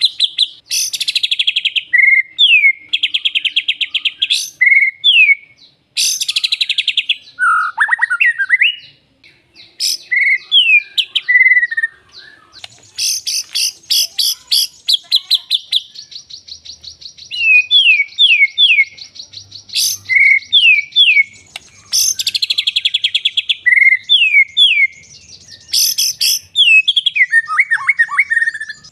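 A contest songbird singing loudly at close range: a varied song of rapid trills, buzzy rattles and quick runs of down-slurred whistles, rich in learned fill phrases (isian).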